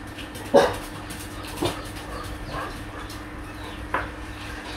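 A dog barking three short, separate barks, the first the loudest, over a faint steady hum.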